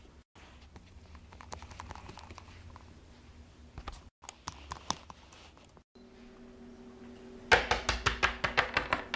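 Faint rustling and soft clicks of plastic Littlest Pet Shop figures handled over carpet, then, near the end, a quick run of loud clicking taps as the figures are knocked along a hard wooden surface.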